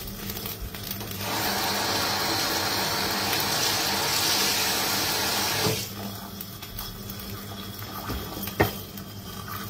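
Water running from a tap: a steady rush that starts about a second in and cuts off after about four and a half seconds. A single sharp click comes near the end.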